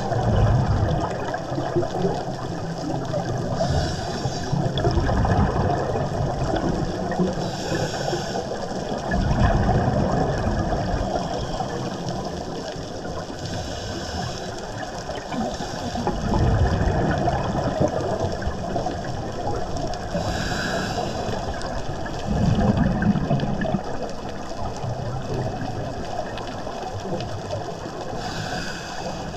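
Scuba diver breathing through a regulator, heard underwater through the GoPro housing. Several breath cycles: a short hiss on each inhale, then a longer low rumble of exhaled bubbles.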